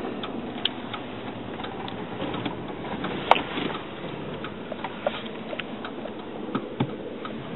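Inside a car moving slowly along a dirt road: steady cabin noise with scattered, irregular small clicks and ticks, one sharper click about halfway through.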